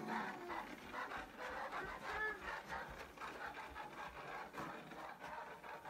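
Plastic toy dump truck pushed across carpet, its wheels and body rolling and rubbing with a continuous scraping noise.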